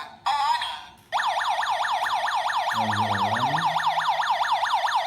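WiFi/GSM home alarm system's siren set off by the motion sensor. A few short falling chirps come first, then about a second in a loud, continuous electronic wail starts, made of rapid falling sweeps repeating several times a second.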